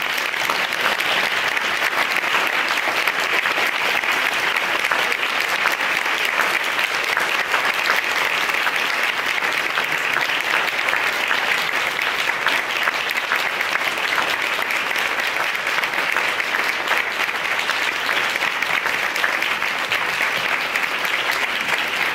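Sustained applause from a seated audience in a banquet room, many people clapping steadily after a keynote address.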